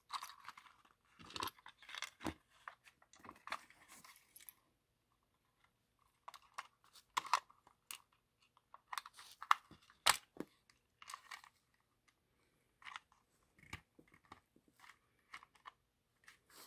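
Small jeweller's screwdriver prying and scraping at the snap-on plastic body shell of an HO-scale model locomotive: irregular clicks, scratches and plastic creaks, with a short pause a few seconds in.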